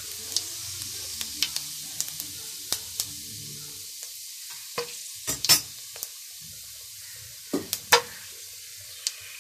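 Fennel seeds and whole spices (cinnamon, cloves, marathi moggu) sizzling in hot oil: a steady hiss broken by scattered sharp pops, the loudest about five and a half and eight seconds in.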